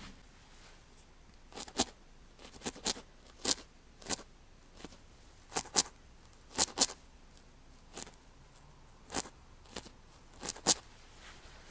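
A felting needle stabbing into merino wool on a felted head: about fifteen short, crisp, scratchy stabs at an uneven pace, often in quick pairs, beginning about a second and a half in.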